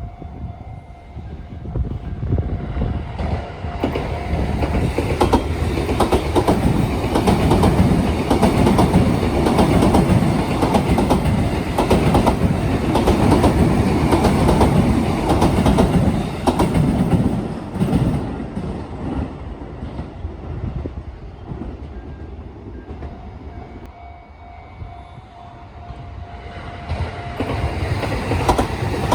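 A Sotetsu electric train runs over the turnout near Sagami-Ōtsuka Station, its wheels clattering loudly over the switch and rail joints. The clatter builds to its loudest through the middle, eases after about 20 seconds and picks up again near the end. A level-crossing warning bell rings as a steady tone at the start and again in the last few seconds.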